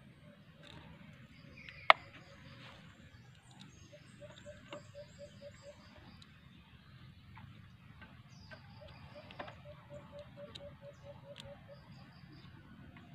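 Screwdriver turning the brake drum's retaining screws on a Bajaj RE three-wheeler: light metal clicks, with one sharp click about two seconds in. A bird's rapid repeated call comes in three runs in the background.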